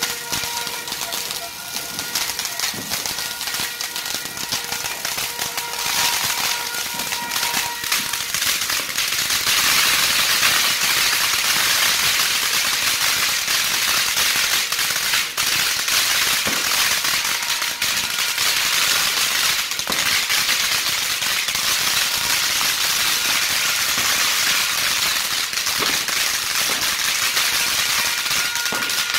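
Several crackling fountain fireworks burning at once: a dense, continuous crackle of rapid pops over a hiss of spraying sparks. It grows louder about nine or ten seconds in.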